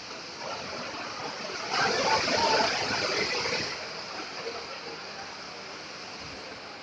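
Heavy rain pouring down in a steady hiss, swelling louder for about two seconds near the start before settling back.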